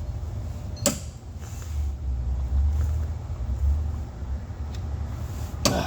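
Two sharp clicks, about a second in and near the end, over a steady low hum, from a large torque wrench being worked on the rear control-arm mounting bolts.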